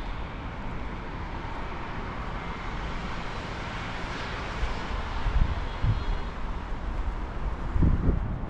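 A passing motor vehicle: a steady rushing noise that swells around the middle and fades, with a few low thumps near the end.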